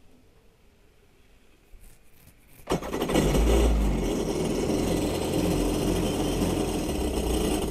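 The four-stroke engine of a 2006 Kawasaki STX-15F jet ski starts about three seconds in and runs steadily while fogging oil is sprayed into its intake for winter storage.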